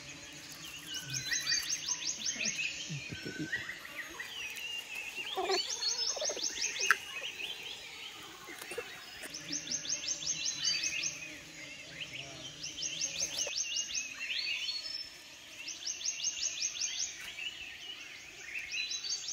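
Forest wildlife calling: every three to four seconds a high, rapid trill of about ten clicking notes, with chirps rising in pitch between them. A single sharp knock comes about seven seconds in.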